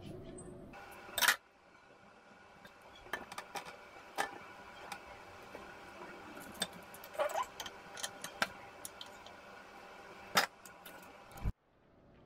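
Scattered light clicks and knocks of food preparation: a knife, fruit and a plastic punnet being handled against a ceramic plate on a kitchen counter. The sound drops out suddenly near the end.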